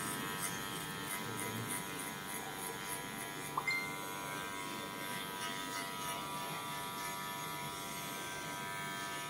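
Electric hair clipper running with a steady buzz.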